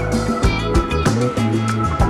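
Background music with a steady beat: sustained bass and melody notes over regular drum strokes.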